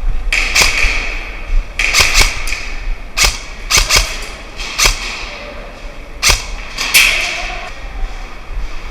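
Airsoft guns firing, about ten sharp irregular cracks, some coming two or three in quick succession, over a steady hiss of play.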